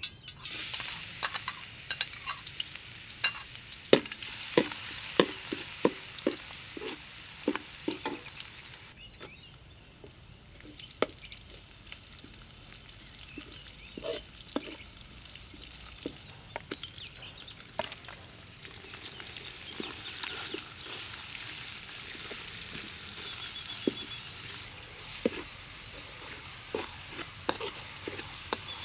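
Hot oil sizzling in a steel wok while a metal spatula repeatedly scrapes and knocks against the pan, as chopped aromatics and then minced meat are stir-fried. The sizzle eases off about nine seconds in and builds up again later.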